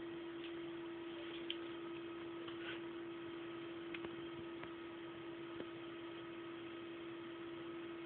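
Steady electrical hum over a constant hiss, with a few faint, scattered clicks.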